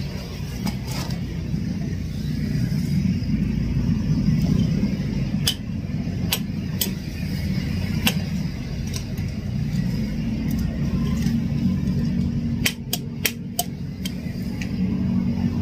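A steady low mechanical rumble, like a running engine, with scattered sharp clicks and a quick cluster of clicks about two-thirds of the way through.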